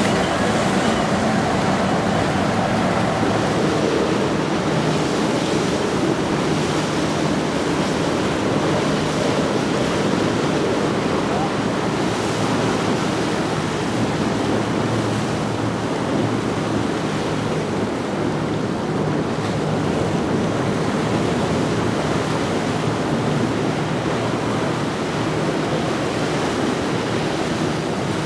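Wind buffeting the microphone over the steady rush of waves and boat wakes, with a low, steady hum of yacht engines underneath.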